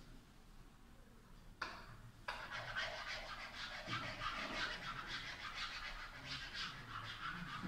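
Stylus pen scratching across the surface of an interactive whiteboard in handwriting strokes: one short stroke about a second and a half in, then writing almost without a break until near the end.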